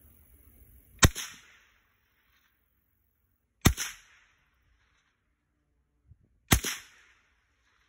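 Three shots from a Savage Model 64F semi-automatic .22 Long Rifle rifle: the first about a second in, the next about two and a half seconds later, the last about three seconds after that, each sharp crack trailing off in a brief echo.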